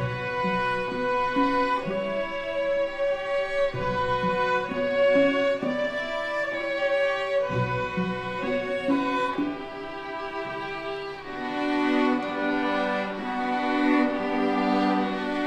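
A school string orchestra of violins, cellos and double basses playing held, slowly changing notes. The lower strings come in fuller and the music grows louder about eleven seconds in.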